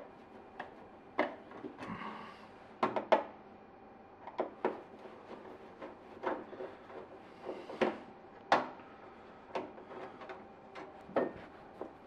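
Screwdriver working the screws of a chest freezer's louvred rear cover panel: a series of small, irregular clicks and taps of the tool on the screws and panel.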